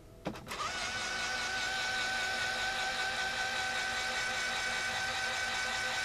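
Eco LLC 8-inch 12 V DC linear actuator running on the bench with no load: a click, then its electric motor and screw drive start and run with a steady whine as the rod retracts.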